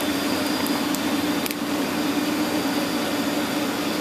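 Steady hum of running workshop machinery, a low steady tone over a hiss, with a couple of faint clicks about a second in.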